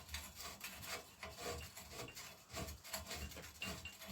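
Faint, repeated rubbing and scraping strokes, irregular, about one or two a second, as the threads of a bike's bottom bracket are cleaned.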